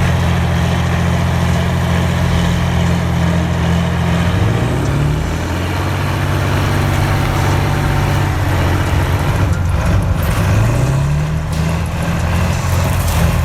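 Kirovets K-701 tractor's V12 diesel engine running hard while pushing against a tree: a loud, steady low drone that climbs in pitch twice, about five seconds in and again near eleven seconds.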